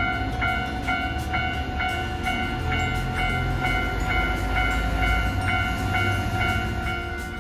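Level-crossing warning bell ringing steadily at about two and a half strokes a second over the low rumble of a Hiroden articulated low-floor tram running toward the crossing.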